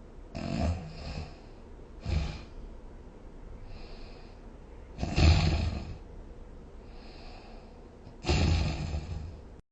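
A sleeping person snoring: four loud snores about two to three seconds apart, the loudest about five seconds in, with fainter breaths between them.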